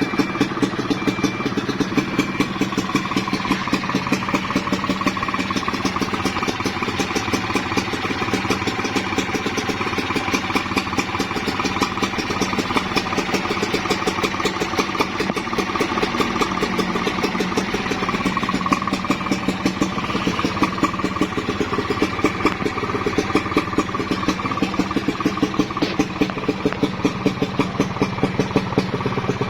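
Single-cylinder two-stroke engine of a Kawasaki Ninja 150 KIPS, fitted in a GasGas trail bike, idling steadily with an even pulsing beat.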